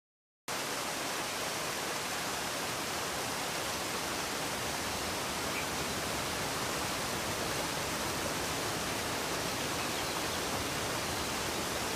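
Waterfall sound effect: a steady, even rush of falling water that cuts in abruptly about half a second in.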